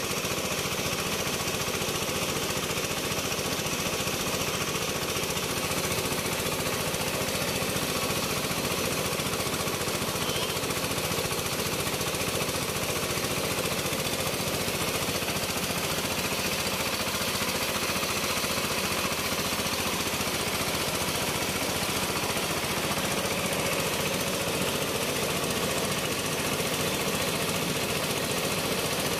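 Engine-driven rice mill running steadily while milling palay (unhusked rice): a fast, even engine beat under a constant hiss of the grain passing through the machine.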